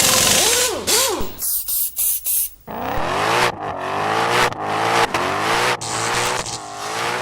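Car engine revving in a series of rising and falling blips.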